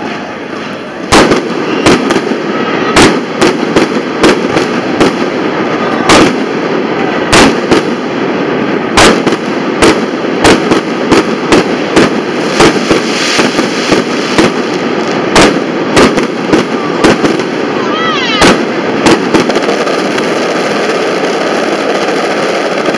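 Aerial fireworks display: shells bursting in a rapid, irregular series of loud bangs, several a second at times, over a steady background of crowd noise. The bangs stop a few seconds before the end.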